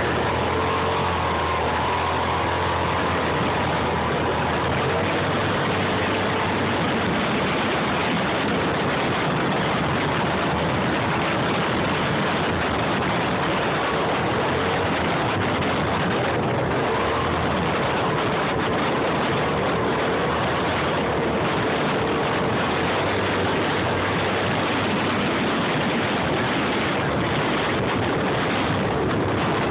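Steady running and driving noise of an off-road vehicle moving along a trail: a loud, even rush with a faint engine hum that wavers slightly.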